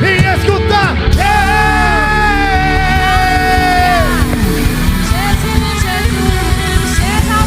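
Live worship band music with a singer's voice over it, holding one long note from about one to four seconds in.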